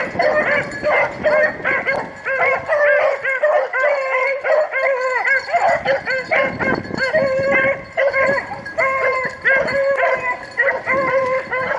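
A pack of rabbit hounds baying on a rabbit's trail: several dogs giving tongue at once, their arched, drawn-out cries overlapping without a break.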